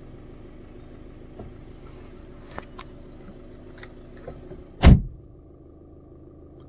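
Skoda Rapid 1.5-litre diesel engine idling, a steady low hum heard inside the cabin, with a few light clicks and one loud thump about five seconds in.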